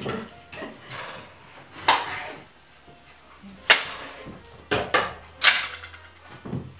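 Tomatoes being cut with a kitchen knife and the pieces dropped into a blender jar: about six separate sharp clicks and knocks.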